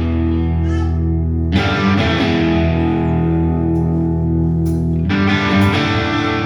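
Rock music: a distorted electric guitar holds sustained chords over a bass line, changing chord twice.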